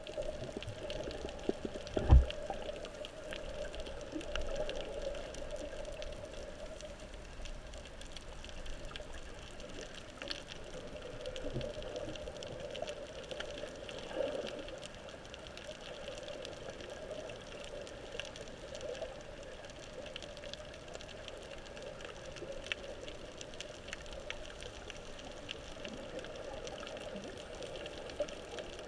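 Underwater ambience picked up by a camera in a waterproof housing: a steady muffled wash with faint scattered clicks. A single low thump about two seconds in.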